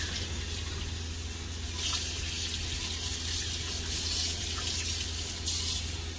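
Kitchen tap running into a stainless steel sink, the stream splashing over hands as a squid is rinsed under it. The splashing swells briefly a couple of times as the hands move in the stream.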